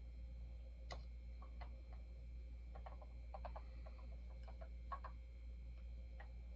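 Scattered light clicks and taps of a bobblehead figure being handled and fitted onto its display base, over a steady low hum.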